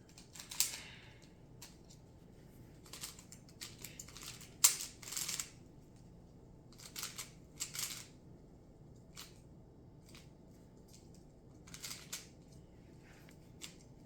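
Plastic Rubik's cube being twisted by hand: irregular clicks and short clacking turns of the layers, with pauses between them.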